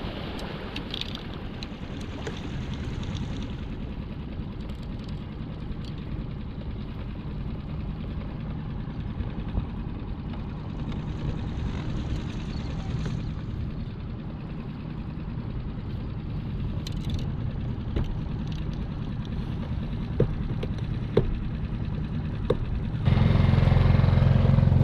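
Mercury outboard motor on a small skiff running steadily at low speed, with a few light clicks and knocks over it. Near the end the engine sound becomes suddenly louder.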